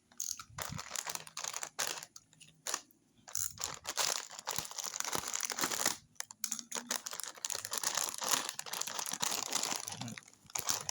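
Plastic snack bag of Chippy corn chips being torn open and handled, the packaging crinkling in clusters with short pauses, then crinkling almost continuously through the second half.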